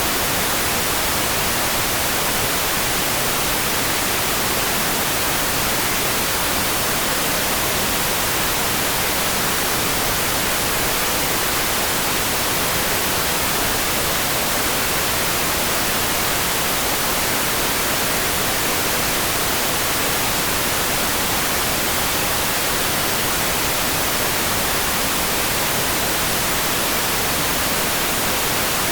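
Steady, even hiss of rain-like noise for sleep, unchanging throughout, with no separate drops, thunder or other sounds standing out.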